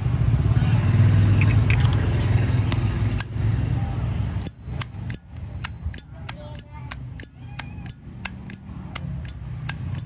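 Titanium-plated 1995 Zippo lighter's lid being flicked open and snapped shut over and over, a run of sharp metallic clacks with a bright ring, about three a second, starting about halfway through. Before that, a steady low rumble.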